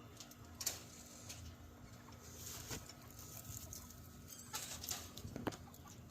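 Chickens feeding on garden scraps: scattered sharp pecking taps and short bouts of rustling.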